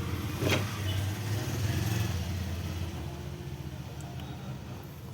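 A motor vehicle engine running, swelling over the first two seconds and then easing off, with one sharp click about half a second in.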